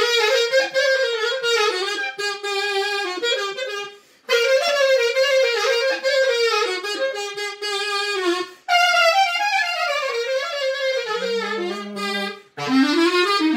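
Clarinet playing the instrumental introduction to a Greek song: a single ornamented melody in four phrases, with short breath pauses about four, nine and twelve and a half seconds in.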